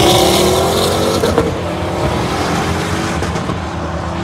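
Two supercars accelerating hard away down a runway. The engine note is loudest at the start, then sinks slightly in pitch and fades as they pull into the distance.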